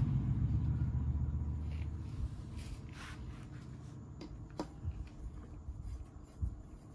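A few faint sharp metal clicks, then a soft knock near the end, as a long metal tool is handled against the engine's aluminium crankcase and stator plate, over quiet workshop room tone.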